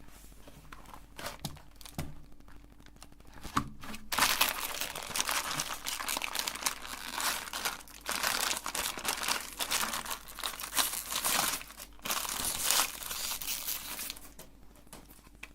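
Plastic ice cream wrapping crinkling and tearing in dense, irregular bursts for about ten seconds, over a faint steady hum.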